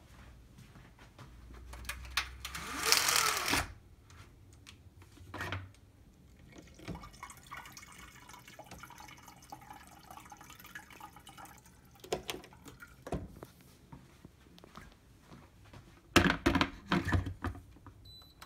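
Water trickling from the spigot of a plastic countertop water dispenser into a stainless electric kettle, after a brief loud splash about three seconds in. Near the end come several hard clunks as the kettle is handled and set down.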